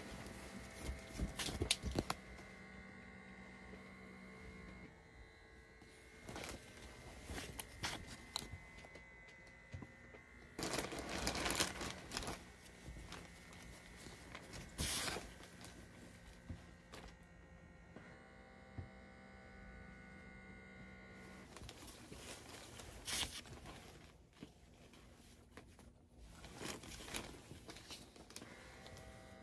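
Irregular rustling and crinkling handling noises in short bursts, over a faint steady hum that drops out and comes back.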